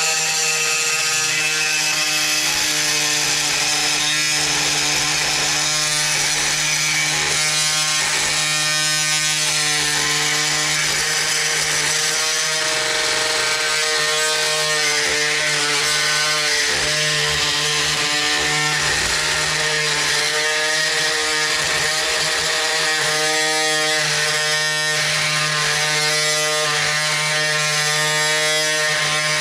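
Oscillating multi-tool running steadily with a saw blade cutting into a drywall screw set in wood.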